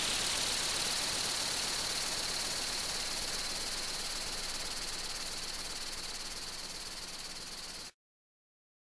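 Steady high hiss with a thin high whine, fading slowly and then cutting off suddenly near the end.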